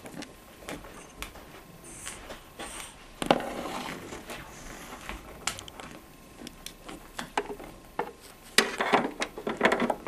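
African grey parrot working its beak against a wooden board: a run of clicks, knocks and scratchy rasps, with the loudest stretches about three seconds in and again near the end.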